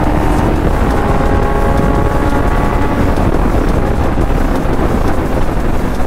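Suzuki GSX-R600's inline-four engine running at a steady cruise while riding, half-buried under heavy wind rush on the microphone.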